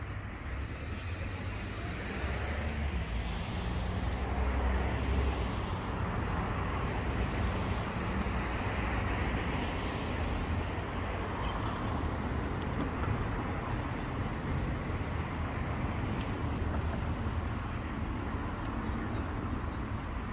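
Steady urban road traffic noise with a low rumble, and a vehicle passing close between about two and six seconds in.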